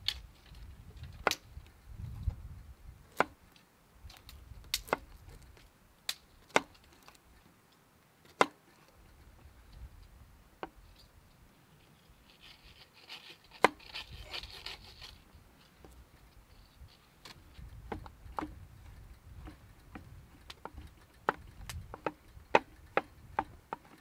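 Kitchen knife cutting ingredients on a cutting board: sharp, separate knocks of the blade reaching the board, irregularly spaced a second or two apart, with a short rustling noise about halfway through.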